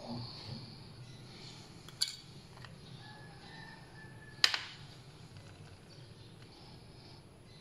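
Two sharp clinks of a metal food can knocking against a ceramic plate, one about two seconds in and a louder one halfway through.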